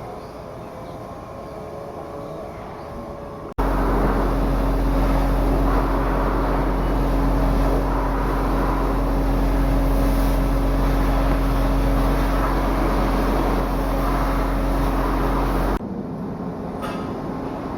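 Heavy shipyard machinery running with a steady, loud drone and a constant low hum. It comes in abruptly a few seconds in and cuts off abruptly near the end, with quieter steady machinery noise before and after.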